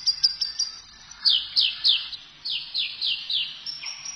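Birdsong heard over a radio broadcast: a fast, even run of high chirps, then from about a second in a string of slower, high, downward-sliding whistled notes.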